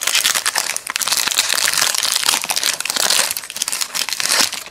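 Foil wrapper of an Upper Deck basketball card pack crinkling as it is torn open by hand: a dense run of crackling that dies away at the end.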